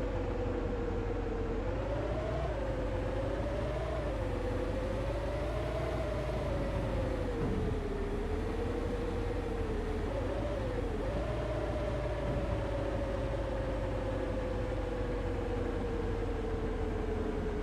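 Bus on the move: steady engine and road noise with a whine that wanders up and down in pitch, dipping and rising several times, then sliding slowly lower near the end.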